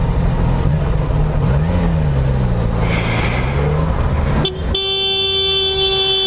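Motorcycle engine running on the road, its pitch rising and dropping once, then a vehicle horn held steadily for about two seconds near the end.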